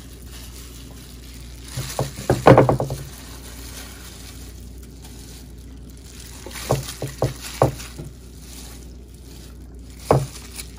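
Marinated pork rib pieces being set down in a glass baking dish, knocking and clunking against the glass in short clusters. The loudest cluster comes about two seconds in, a quicker run of four or five knocks comes past the middle, and a single knock comes near the end.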